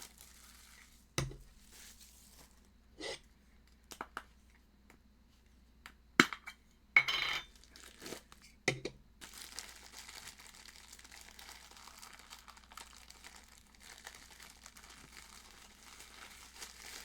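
Cardboard box and plastic packaging of a vinyl figure being handled and opened. A few separate knocks and clicks come first, with a short louder rustle about seven seconds in. After that comes faint, steady crinkling.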